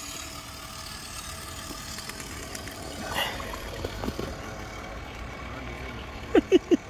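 Steady low background rumble, then three short, loud, pitched calls in quick succession near the end.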